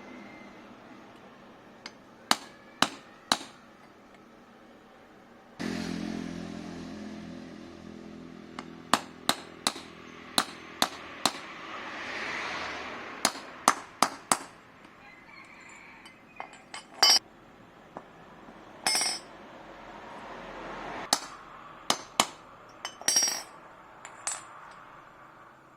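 Hand tools tapping and clinking on metal: about two dozen sharp knocks in irregular groups, some in quick runs of three or four. A low steady hum starts suddenly about six seconds in and fades out later.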